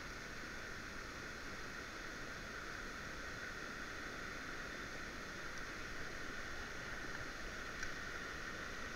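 Steady hiss of light rain and running river water, with one small click about eight seconds in.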